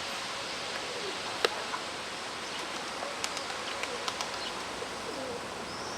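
Domestic pigeons cooing over a steady rush of wind on the microphone. There is one sharp click about a second and a half in and a few fainter ticks later.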